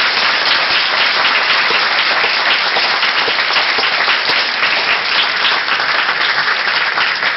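Audience applauding loudly: the dense, steady clapping of many hands.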